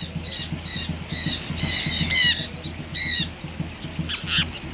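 Birds calling at close range: a run of short, high-pitched calls, several a second, each arching up and down in pitch.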